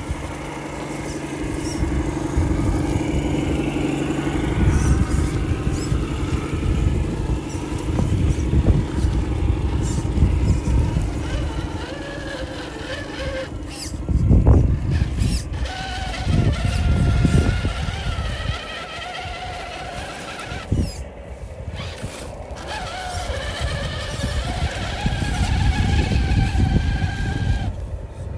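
Electric motors and gear trains of 1/10-scale RC crawlers whining as they crawl over rocks and dirt, the pitch rising and falling with the throttle and stopping briefly twice. Low, uneven rumbling sits underneath.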